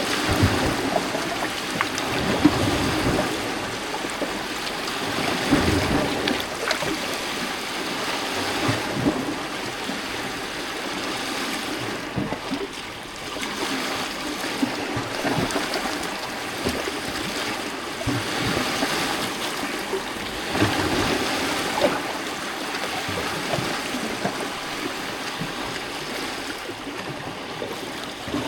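Small lake waves lapping and splashing against a rocky shore: a continuous wash of water that swells irregularly every few seconds, with occasional low thuds as water hits the rocks.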